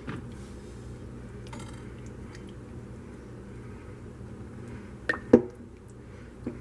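Two sharp clacks of hard kitchenware knocking together about five seconds in, and a lighter one near the end, over a steady low hum.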